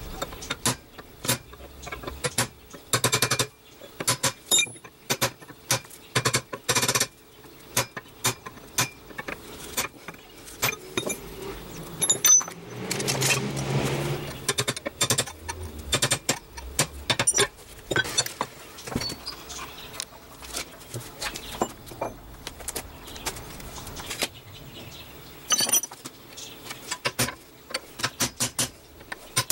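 Hammer tapping on a steel workpiece in irregular runs of strikes, each with a short metallic ring. A short rushing noise about halfway through.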